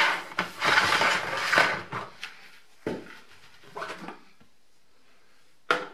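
Plastic screw-on lid of a fermentation bucket being twisted open, scraping and grating against the rim in several rough strokes. It is then lifted off with a few short plastic knocks and a sharp click near the end.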